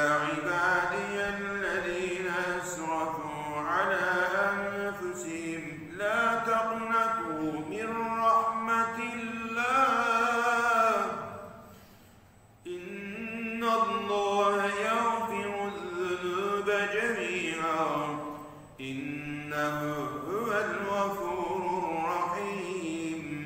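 A man reciting the Quran aloud in Arabic, in a slow melodic chant (tilawah) of long drawn-out phrases. A breath pause comes about eleven seconds in and a shorter one near nineteen seconds.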